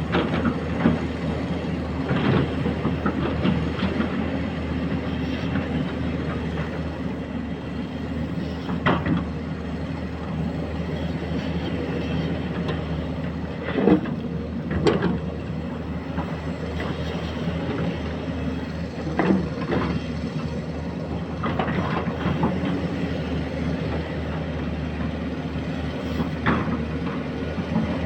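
Excavator's diesel engine running steadily under work, with several sharp clanks at irregular intervals from the machine.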